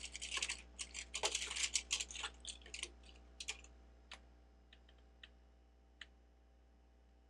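Loose plastic Lego pieces clattering as hands sort through them, a dense rattle of small clicks for about three seconds. A handful of single clicks follow, as pieces are picked up or set down.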